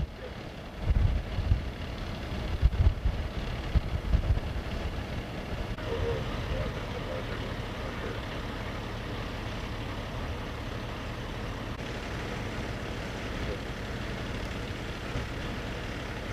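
Steady rumble of heavy vehicles and equipment engines running, with gusty low buffeting, like wind on the microphone, in the first few seconds.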